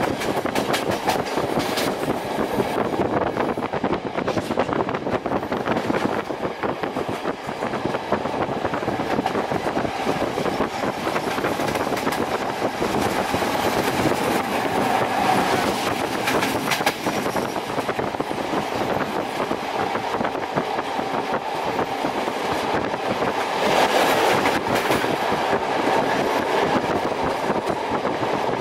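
Train running along the track, heard from inside a carriage at the window: a steady rolling noise with wheels clattering irregularly over rail joints and points.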